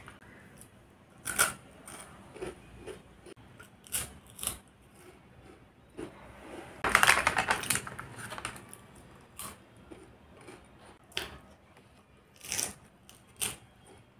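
A foil snack packet crinkling and crackling in scattered short bursts as it is handled, the longest and loudest about seven seconds in, with a few crunches of the snack being eaten.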